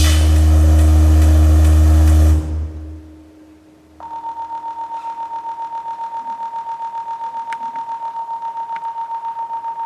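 Loud music with a heavy bass beat stops about two and a half seconds in. After a short lull, a single steady high electronic tone starts about four seconds in, pulsing evenly about five times a second.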